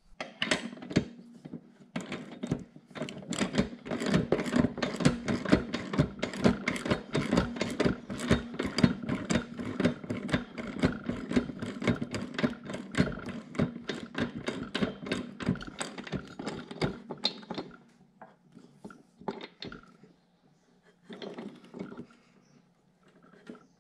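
Ratcheting wrench clicking rapidly as the nut on a mower deck spindle pulley is tightened. The clicking stops about 17 seconds in, followed by a few scattered clicks and knocks of the tool on the deck.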